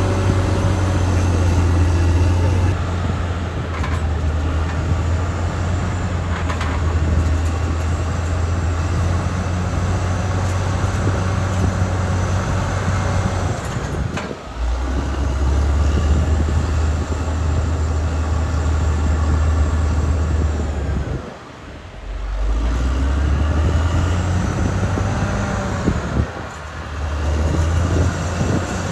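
Caterpillar D6R XL crawler bulldozer working: its diesel engine runs steadily under load, mixed with the rumble of the machine. The sound dips briefly three times.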